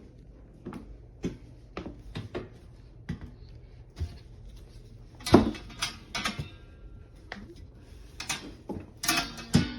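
Irregular knocks, clicks and rustling of objects being handled, with the loudest knock about five seconds in and a cluster of knocks near the end.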